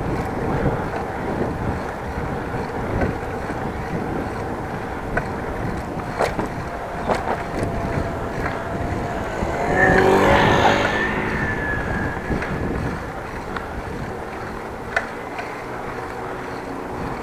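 Steady riding noise from a moving bicycle: tyre and wind rush with scattered small clicks and rattles. A motor vehicle passes, loudest about ten seconds in.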